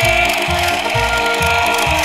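Background music with a steady bass beat about twice a second, over the grinding whir of a battery-powered walking toy dinosaur's gear motor.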